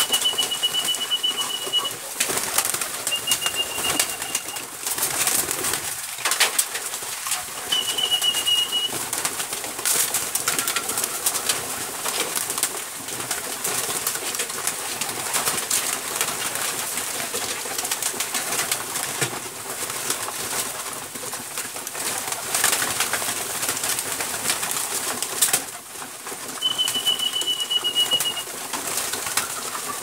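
A large flock of domestic pigeons feeding, cooing and flapping their wings, with constant scuffling and many short clicks. A short, steady high whistle sounds four times.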